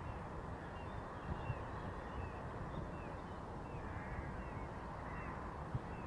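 Scattered short bird calls, many brief chirps, over a steady low outdoor rumble.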